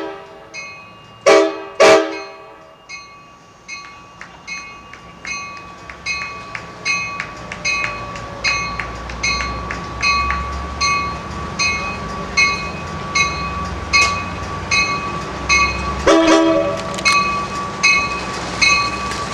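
Amtrak bi-level cab car's horn giving two short blasts, the usual signal that the train is about to move off, then its bell ringing about twice a second as the train pulls out. A low rumble builds under the bell, and there is one more horn blast near the end.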